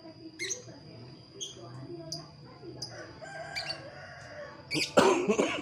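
A rooster crowing, loudest about five seconds in, amid short high chirps of small birds.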